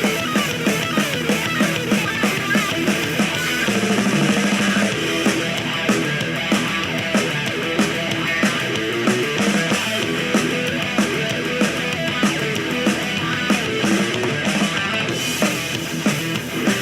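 Rock-style music with drum kit and guitar and a steady beat, an instrumental stretch without vocals, played back through a Muzen Wild Go portable Bluetooth speaker.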